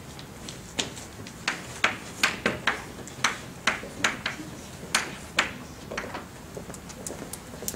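Chalk writing on a chalkboard: a quick, uneven series of sharp taps and short scratches as each letter is stroked out.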